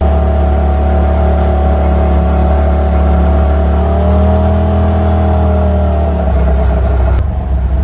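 Side-by-side UTV engine running steadily, its pitch rising slightly around the middle and easing back, with a click near the end.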